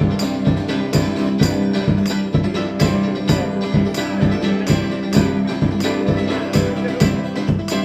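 Live band music: an instrumental passage with guitars and a steady beat of about two strokes a second.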